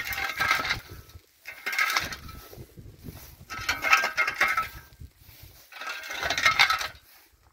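Rhythmic gritty scraping strokes of hand work, four in a row about every second and a half, each with a clinking edge.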